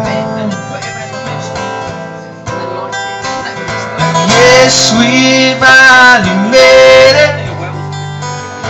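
Live acoustic guitar duo playing a song: two acoustic guitars picking and strumming chords. About halfway through, a voice comes in singing long held notes with vibrato, and the music gets louder.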